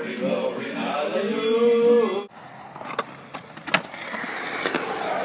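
A voice singing, ending in a long rising held note that cuts off about two seconds in. Then skateboard wheels roll on the concrete of a skatepark bowl, with several sharp clacks from the boards.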